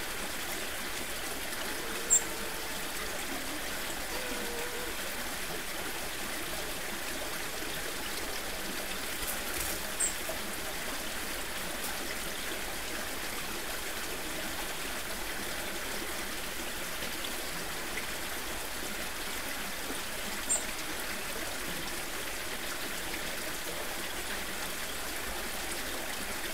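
Steady rush of a small stream flowing over rocks. Three short, high-pitched chirps stand out, several seconds apart.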